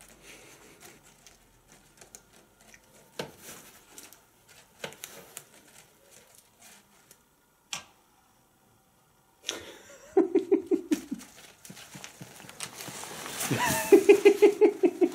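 Nylon fabric of a pop-up kids tent rustling and crinkling in scattered bursts and clicks as cats climb on and push into it, loudest as the tent is pushed in near the end. Over that loud rustle, a person laughs in quick pulses.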